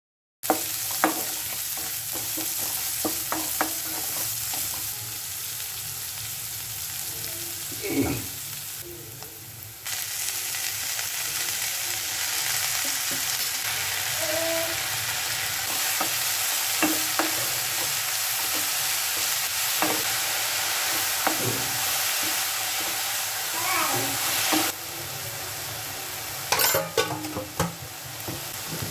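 Onions and then chopped agathi (sesbania) flowers sizzling in hot oil in a nonstick pan, with short scrapes and taps as they are stirred. The sizzle drops back briefly about a third of the way in, and again near the end.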